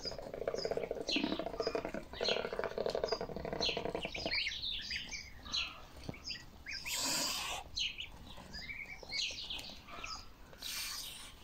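Domestic goslings peeping constantly in many short high chirps while they feed. A low buzzing rattle runs under them for the first four seconds, and two brief rustling bursts come about seven and eleven seconds in.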